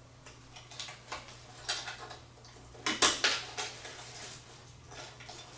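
Metal clinks, clicks and scrapes from a recessed light fixture and a hand tool being handled during wiring, in irregular short bursts, loudest about three seconds in.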